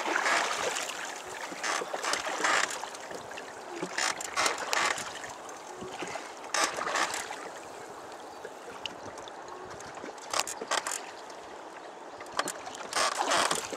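Small boat moving on a river: a steady rush of water and wind, broken by irregular loud gusts buffeting the microphone.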